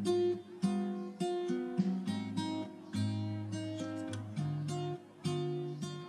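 Background music: acoustic guitar playing plucked and strummed chords in a steady rhythm.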